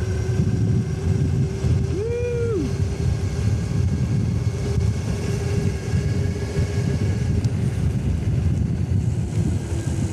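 Engwe Engine Pro electric bike riding at speed: wind buffets the microphone over a steady electric motor whine and the hiss of fat tyres on a wet road. A short pitched sound rises and falls about two seconds in.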